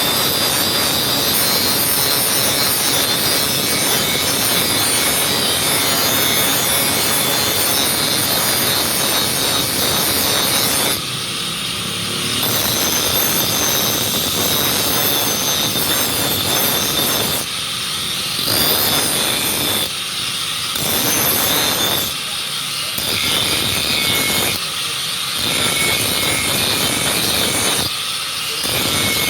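A knife blade being sharpened against an abrasive, a continuous harsh grinding hiss of steel on stone. It runs unbroken for about eleven seconds, then goes on in passes of a few seconds each with short breaks, as the blade is lifted and set back.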